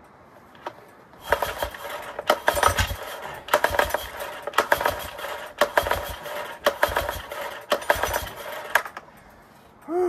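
Recoil pull-starter of a Yamaha 9.9 hp four-stroke outboard yanked about seven times in quick succession, roughly once a second. Each pull gives a clattering rattle as the engine turns over without catching: a non-starter, which the owner puts down to no fuel getting through to the carburettor.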